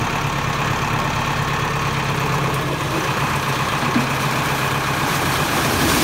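Tractor engine running steadily while powering a corn-picking harvester, getting louder near the end as the hopper tips up to dump the picked cobs.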